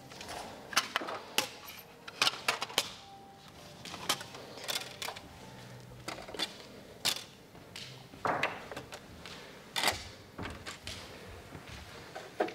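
Irregular sharp taps and soft brushing scuffs of ballet-slippered feet working against a studio floor, with no music.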